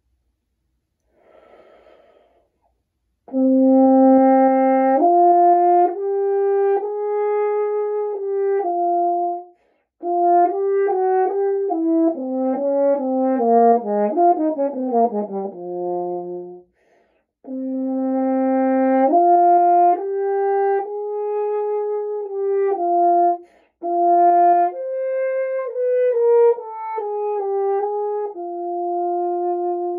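French horn playing a slow vocalise melody in four phrases, with short pauses for breath between them. Midway through, a quick run of notes falls to a low held note.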